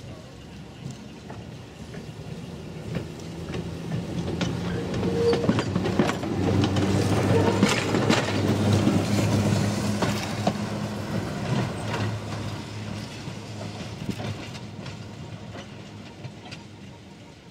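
Electric railway line car rolling past: wheels clicking over rail joints over a steady low hum. It grows louder as it nears, is loudest as it passes about halfway through, then fades as it moves away.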